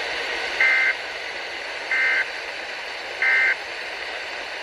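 Emergency Alert System end-of-message (EOM) data tones: three short, identical bursts of two-pitch digital warbling, about a second and a third apart, over steady radio hiss. They signal that the test message is over.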